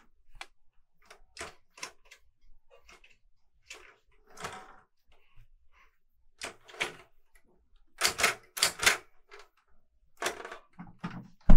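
Clover 810S manual typebar typewriter typed slowly by hand: single key strokes, each a sharp clack, at uneven gaps of about half a second to a second. About eight seconds in comes a quicker run of louder strokes.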